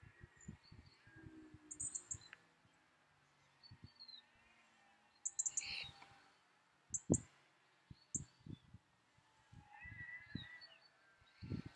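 Small birds chirping in short high bursts, with a few brief whistled notes. Irregular low thumps run underneath; the loudest comes about seven seconds in.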